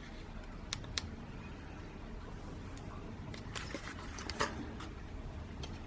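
Scattered light clicks and taps from handling a small plastic drone, over a low steady hum.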